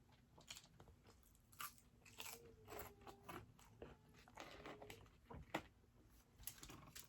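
Close-miked chewing: irregular wet mouth clicks and smacks as food is bitten and chewed, with two short low hums in the middle.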